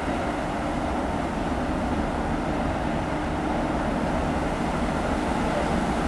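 ChME3 shunting diesel locomotive, its six-cylinder diesel engine running steadily as it hauls freight wagons slowly toward the listener, the sound slowly growing louder as it approaches.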